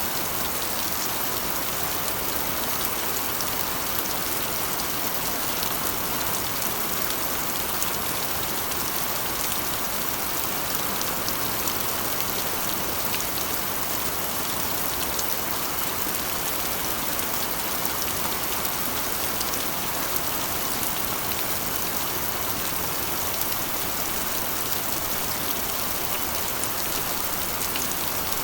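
Steady rain drumming on a corrugated iron roof, a dense even hiss with many small drop ticks.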